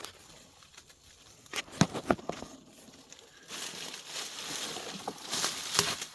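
Rustling and crackling of brush and wood debris, with a few sharp clicks about two seconds in and a steadier rustle from halfway on.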